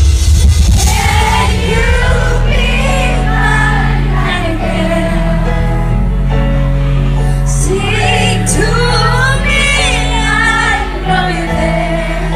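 Female lead vocal singing a slow pop ballad live, holding long notes with vibrato over band accompaniment with sustained bass notes.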